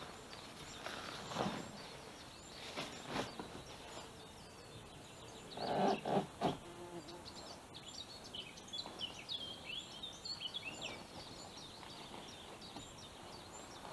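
Rustling and knocking as a kayak's cover and straps are handled on a car roof rack, the loudest a short burst about six seconds in. Small birds chirp throughout, more busily from about eight seconds on.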